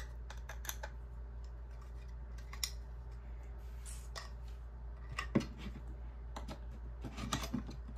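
Small metal blade scraping and prying leftover support material off a 3D-printed plastic goggle frame: scattered clicks and scratches of metal on plastic, with a cluster near the end, over a steady low hum.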